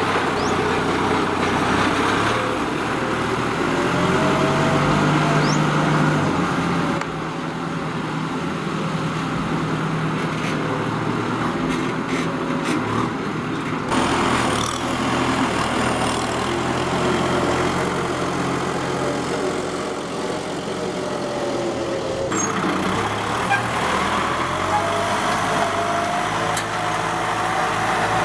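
Kubota tractor's diesel engine running steadily under load while working dry field soil. The sound changes abruptly several times where separate clips are cut together.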